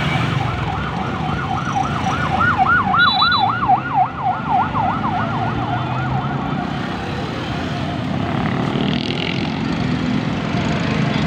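Escort vehicle's siren in a fast yelp, rising and falling about four times a second, loudest in the middle and stopping about two-thirds of the way through, over the steady running of motorcycle engines. A short high beep sounds about three seconds in.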